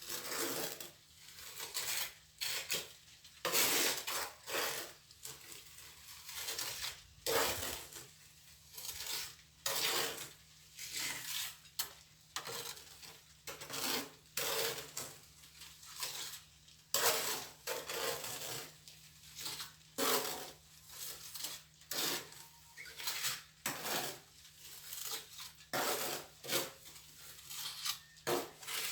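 Steel plastering trowel scraping and spreading cement mortar in repeated strokes, about one a second, with occasional metallic clinks.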